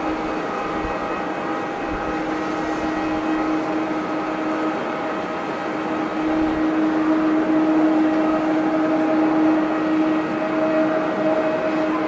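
Airbus A321neo airliner's jet engines running as it moves along the runway: a steady whine of several held tones over a rushing noise, growing louder about six seconds in.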